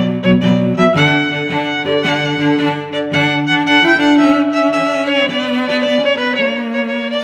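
Background music of bowed strings, violin over lower strings, playing slow held notes.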